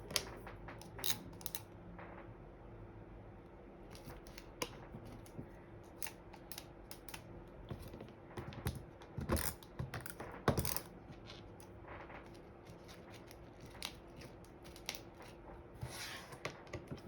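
Scattered small clicks, taps and rustles of cardstock craft pieces being handled and set down, a few louder ones about two thirds of the way through, over a faint steady hum.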